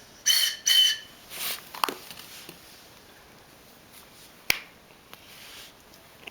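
Two short high whistle toots, the signal to pick an egg, followed by a few sharp plastic clicks and handling noises as a plastic surprise egg is taken up and opened.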